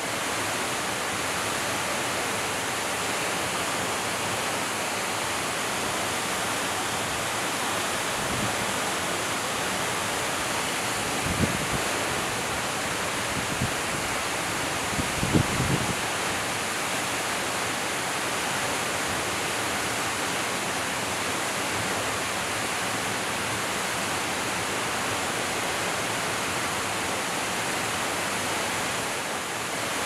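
Waterfall plunging into its pool: a steady, even rush of falling water. A few low thumps come about halfway through.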